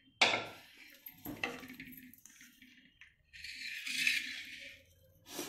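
Wooden spatula knocking against a cooking pan and serving bowl as curry is scraped out: one sharp knock right at the start, a smaller one about a second later, then a short stretch of rustling and one more knock near the end.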